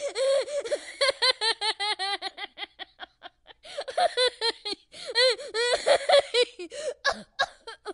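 Child giggling and laughing in quick, high-pitched "ha-ha" bursts, with a short break about three seconds in before a second fit of laughter.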